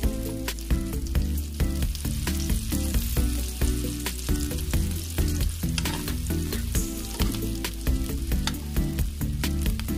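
Sliced onion, garlic and ginger sizzling as they sauté in oil in a pan, stirred with a metal ladle. Background music with a steady beat plays throughout.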